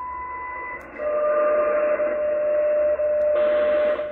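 WWV time signal on 25 MHz shortwave, heard through a Yaesu FTdx10 transceiver's speaker over steady band hiss. It opens with a high beep of under a second, the station's 1000 Hz top-of-minute marker, and then a steady lower tone sounds from about a second in. Near the end the hiss changes as the digital noise reduction is adjusted.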